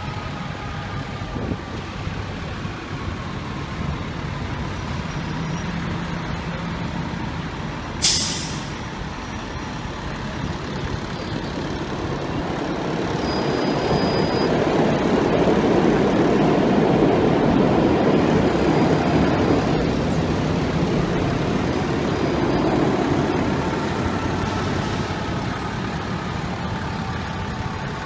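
Fire truck's diesel engine, an FDNY aerial ladder truck, driving past over steady city traffic noise. Its rumble swells and is loudest about halfway through, then fades. About eight seconds in there is one short, sharp air-brake hiss.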